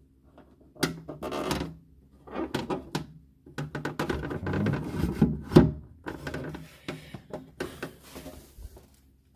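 Handling noises from a refrigerator's fittings: irregular knocks, clicks and thuds, as of drawers, shelves and doors being moved, with a brief rustle about eight seconds in.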